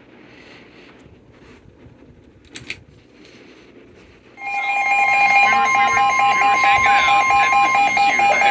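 Emergency Alert System alert tone: after a faint hiss with a brief click, a loud steady tone starts about four and a half seconds in, with a pulsing second tone just below it. It marks the start of a new emergency alert.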